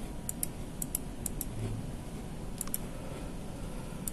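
Light clicks from a computer pointing device, coming in close pairs about five times, over a steady low room hum.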